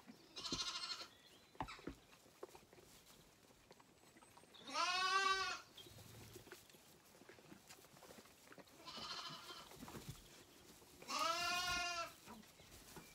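Zwartbles lambs bleating: four separate calls, two short higher-pitched ones and two longer, lower ones that rise and fall, with a few small knocks and rustles in the straw between them.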